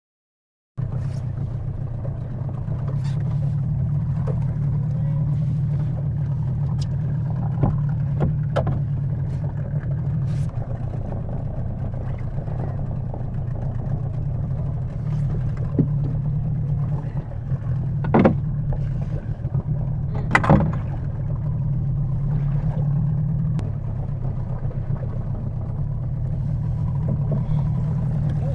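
A 30-horsepower outboard motor running steadily on a small dinghy, with a few sharp knocks about two-thirds of the way through.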